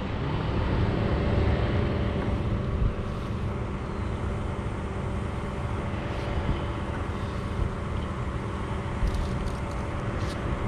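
A steady engine drone holding an even pitch, over a low rumble of wind on the microphone.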